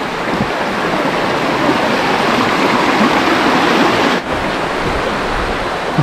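Shallow mountain stream rushing over rocks: a loud, steady rush of water, with one brief dip about four seconds in.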